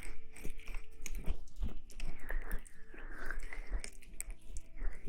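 Close-miked ASMR rustling: a dense crackle of small clicks and scratchy swishes right at the microphone.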